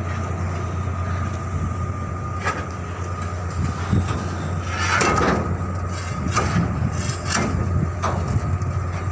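Steady low machinery hum with a thin high whine, and scattered metal knocks and clanks, the loudest about five seconds in.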